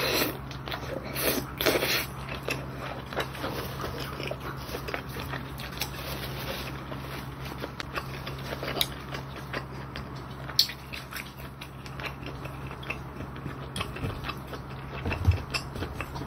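Close-miked eating: slurping ramen noodles and chewing them with wet mouth clicks, busiest in the first couple of seconds and then steady, small chews.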